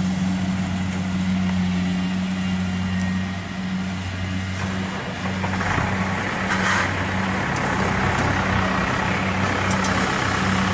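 Kubota 70 rice combine harvester's diesel engine running with a steady low hum as the machine drives closer. About five seconds in, a louder rushing noise rises over the hum as it comes up close over the cut straw.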